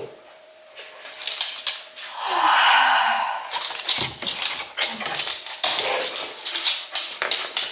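English cocker spaniel giving a drawn-out, falling whine about two seconds in, then a quick run of clicks and taps from her claws on the wooden floor and the gate as she jumps up excitedly.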